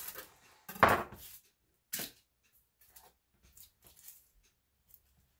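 A kitchen knife knocking twice on a small cutting board as an onion is cut, about a second apart, followed by faint taps and rustles while the onion is peeled.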